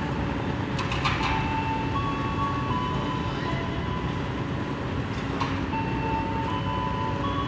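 Passenger train rolling through turnouts on a curve: its wheels squeal in long steady high tones that jump between pitches, over a low rumble, with a couple of sharp clicks as wheels cross the rail joints of the switches.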